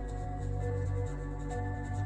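Ambient background music: held synth tones over a low drone, the notes changing every second or so.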